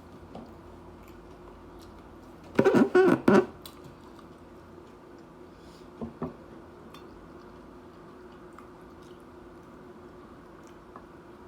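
Close-up chewing of crunchy tortilla-chip nachos. There is one loud burst of crunching about two and a half seconds in, lasting under a second, and two softer crunches around six seconds, over a steady low room hum.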